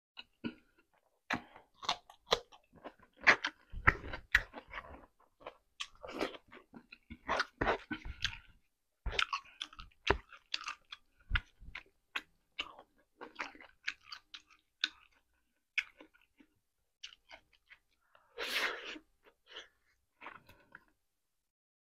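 Close-miked eating: a person chewing food with wet mouth sounds, lip smacks and sharp crisp clicks in irregular bursts, with one longer hissing sound of about a second near the end.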